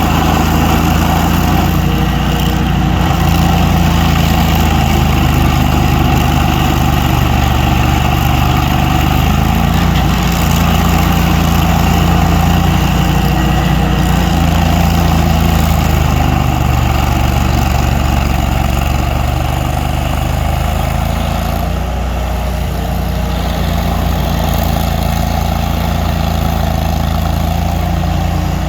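A large engine running steadily at low speed, easing slightly in level about twenty seconds in.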